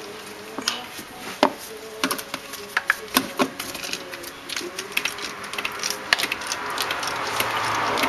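Ratchet wrench clicking in short irregular runs, with metal clinks, as a spark plug is unscrewed with a 5/8-inch spark plug socket.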